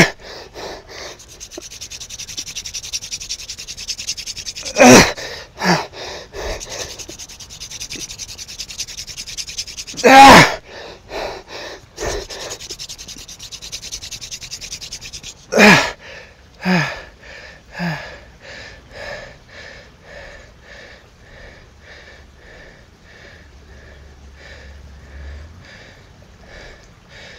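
Cattail hand-drill spindle spun hard into a cottonwood-root hearth board, a steady dry rubbing hiss broken every five seconds or so by a loud forceful breath of effort. The drilling stops about fifteen seconds in, and rhythmic hard panting follows and slowly fades.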